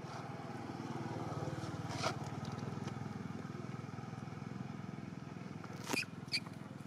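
A small engine running steadily in the background, a low even drone. A sharp short sound comes about two seconds in, and two more come close together near the end.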